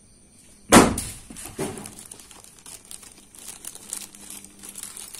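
A mango falling: one loud, sudden thud about a second in, then a softer second bump.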